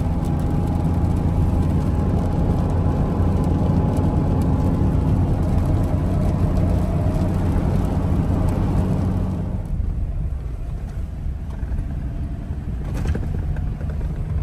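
Road noise inside a moving truck's cabin: a steady low rumble of engine and tyres on a wet road, with a hiss above it that falls away about ten seconds in.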